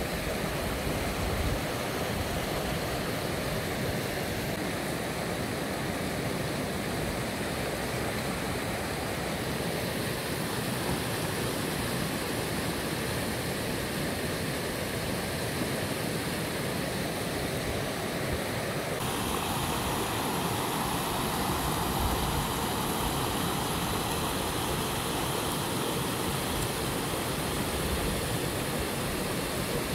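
Steady rushing of river water, a continuous even roar that shifts abruptly in tone about two-thirds of the way through.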